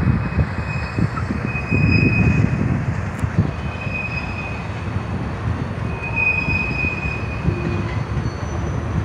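Freight train of covered grain hopper cars rolling past: a steady low rumble with faint knocks, and the wheels squealing in several drawn-out high notes.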